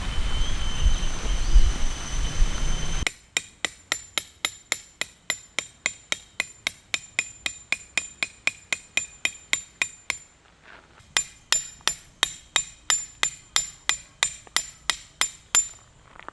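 A hammer or mallet driving a tent peg into the ground: a quick, even run of sharp strikes with a ringing metallic edge, about four a second. It pauses for about a second, then carries on.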